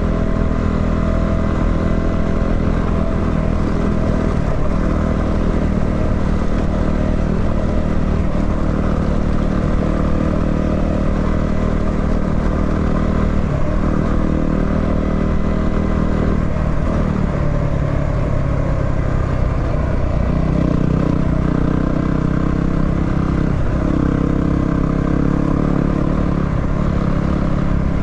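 250cc single-cylinder dual-sport motorcycle engine running under way at a steady pace, its revs dipping briefly a few times in the second half as the throttle eases off.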